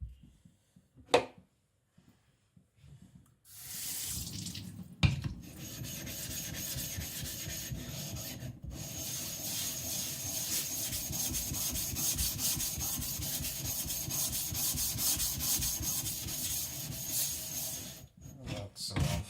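A sharp click about a second in. Then, from about three and a half seconds until near the end, continuous wet scraping on a coarse water-soaked whetstone as abrasive is rubbed back and forth across it.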